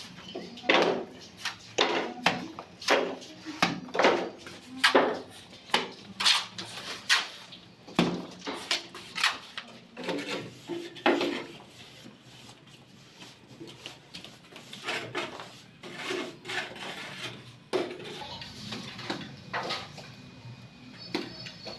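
Cement plastering by hand: a mason's steel trowel scraping and knocking in a metal mortar pan and working mortar onto a brick wall. It comes as a run of sharp scrapes and knocks, about one a second, thinning out for a few seconds midway.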